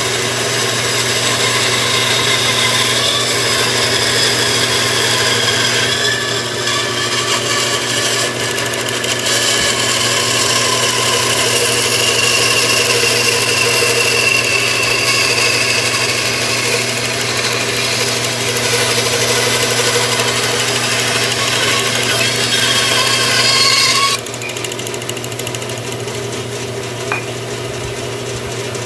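Bandsaw blade cutting through a thick wooden spoon-blank block, the motor humming steadily under a shifting cutting whine as the block is turned along the curve. About three-quarters of the way through the cut finishes and the sound drops to the saw running free.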